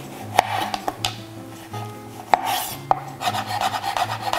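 Chef's knife cutting a fresh peach on a cutting board: a few separate cuts knocking against the board, then faster chopping near the end as the slices are diced.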